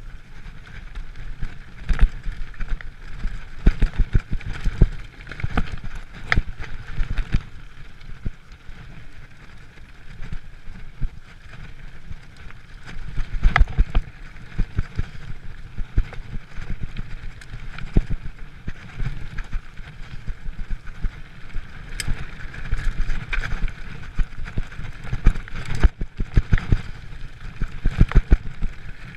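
A Giant mountain bike ridden fast down a rough dirt and rock trail: tyres rumbling over the ground, with frequent sharp knocks and rattles as it hits bumps, coming in rough clusters. Wind rushes on the microphone.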